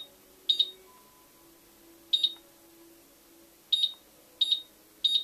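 Klarstein electric wall fireplace beeping to confirm button presses as its flame dimmer is stepped through: about five short, high single beeps at uneven spacing.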